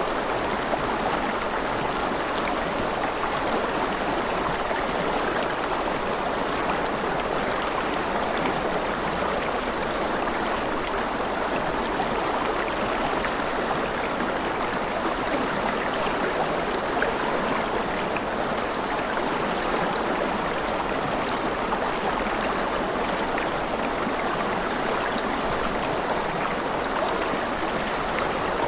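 A rushing river flowing steadily, an even unbroken water noise.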